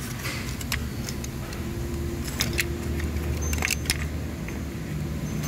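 A metal prying tool clicking and scraping against an ignition coil and its rubber seal as the coil is worked loose from the spark plug well. There are a handful of sharp clinks, over a steady low hum.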